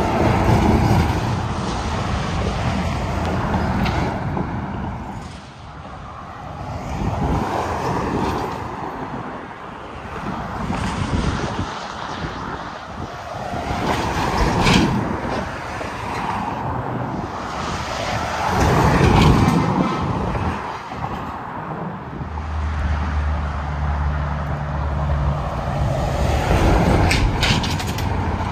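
Interstate highway traffic, mostly semi trucks, passing one after another, each swelling and fading with tyre and engine noise. A steady low diesel engine drone holds for a few seconds near the end.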